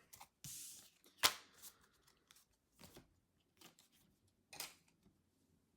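Pokémon trading cards being handled and shuffled through, with a brief rustle, one sharp click and scattered light ticks.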